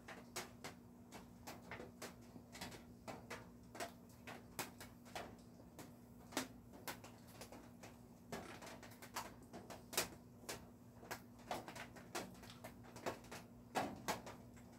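Irregular light clicks and taps, about two or three a second, over a faint steady hum.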